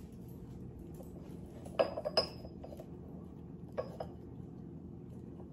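Ceramic kitchenware clinking against itself: three sharp clinks close together about two seconds in, then two more about two seconds later, each with a brief high ring.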